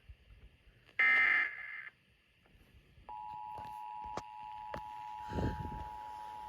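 Emergency Alert System broadcast on a weather radio. A short screeching digital SAME header burst is followed about a second later by the steady two-tone EAS attention signal. Both signal that a warning message is about to be read. A few sharp clicks and a dull thump sound over the tone.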